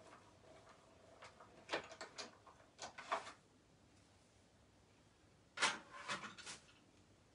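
Small knocks and clatters of objects being handled, in three short groups, the loudest about five and a half seconds in.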